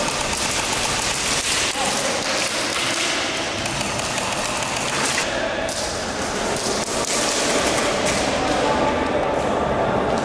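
Airsoft rifles firing rapid automatic bursts, a dense run of fast clicks and snaps, with voices mixed in.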